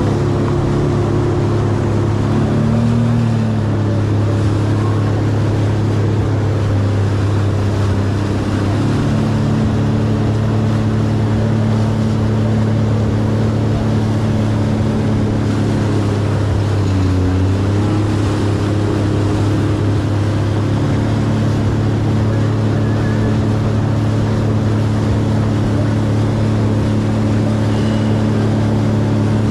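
Jet ski engine running steadily under way, with water spray and wind noise. The engine pitch dips briefly about three seconds in and again a little past the middle, then comes back up.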